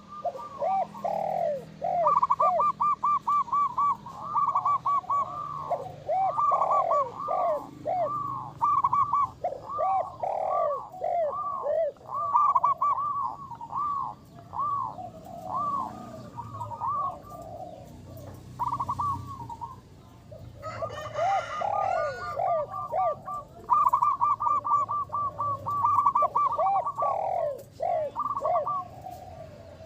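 Zebra dove (perkutut) cooing over and over: quick runs of short, high, even coos alternating with lower looping notes, one phrase after another.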